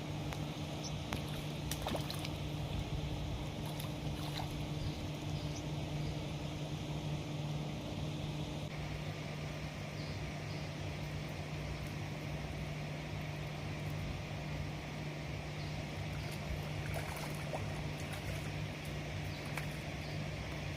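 A steady low machine hum over outdoor background noise. A second, higher hum cuts off about eight seconds in, and there are a few faint clicks.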